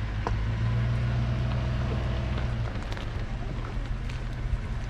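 A vehicle engine running at a steady pitch, with a few light clicks and rattles over it.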